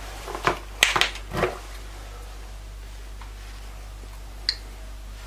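A few light knocks and clatters in the first second and a half as spice containers are handled on a kitchen worktop, then a steady low hum with one small click near the end.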